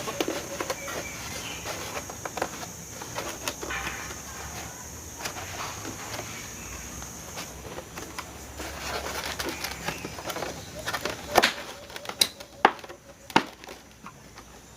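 Parts of a window-type air conditioner being handled and fitted back in place: scattered clicks and knocks, with four sharp knocks in the last few seconds the loudest. A thin steady high tone runs underneath and stops about halfway.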